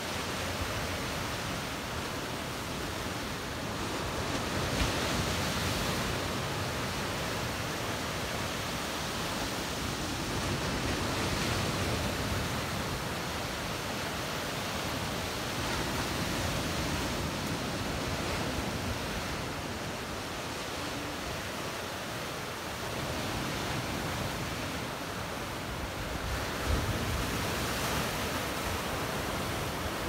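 Black Sea surf: small waves breaking on the shore and washing in foam over rocks and sand, a steady rushing hiss that swells and eases every few seconds as each wave comes in.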